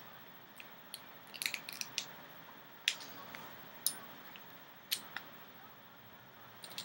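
Scattered sharp metallic clicks and taps, about a dozen at uneven intervals with a quick cluster near the second mark, from a screwdriver working at a stubborn screw in an airsoft M4's body.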